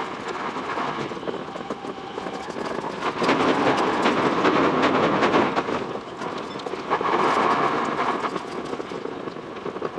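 Tokyo Metro 10000 series train running, sped up six times: a rushing noise thick with rapid, irregular clicks of the wheels over the track, swelling louder twice.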